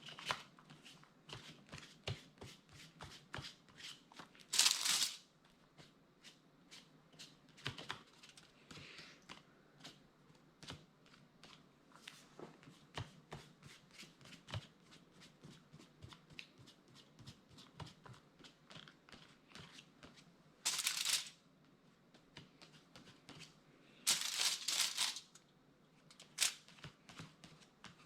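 Close small taps and scrapes of art materials being worked on a tabletop, with three louder, short rustles of paper about five, twenty-one and twenty-four seconds in.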